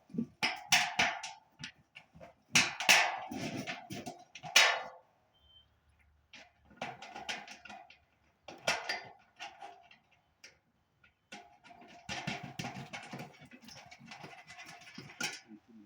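Metal clinking and scraping of bolts and nuts being fitted and tightened on a satellite dish mount, in irregular bursts with short pauses.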